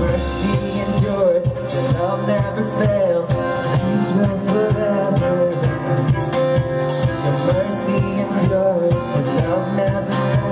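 Live worship band music: a full band playing a slow song with a steady beat and a melody line that bends and slides in pitch.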